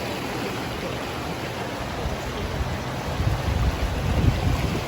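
Wind buffeting the microphone outdoors: a steady hiss with low rumbling gusts that grow stronger about three seconds in.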